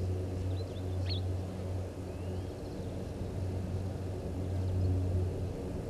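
A steady low hum that swells and fades slightly, with a few faint bird chirps about a second in.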